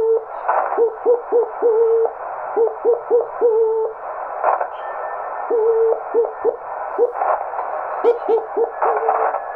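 Slow Morse code heard on a ham radio receiver. The dots and dashes are a fairly low tone, and each one slides up in pitch as it starts, over a steady hiss of band noise. This is the chirp of a homebrew single-valve 4-watt CW transmitter that was deliberately built to be chirpy.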